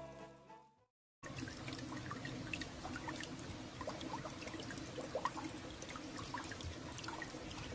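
Music fades out, then after a brief silence comes a faint, steady trickle of water with many small scattered drips.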